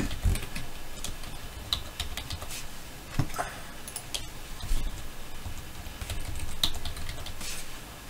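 Computer keyboard typing: scattered, irregular key clicks.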